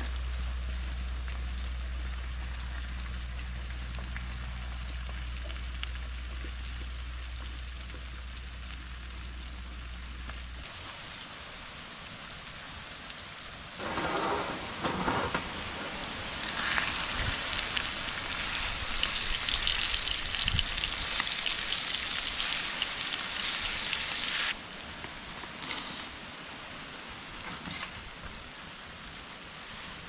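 Eggs with aubergine and bell pepper frying in a pan on a portable gas stove, sizzling with a rain-like hiss that swells loud from about halfway and cuts off abruptly a few seconds before the end. A wooden spatula scrapes in the pan at about the middle, and a low steady hum stops about ten seconds in.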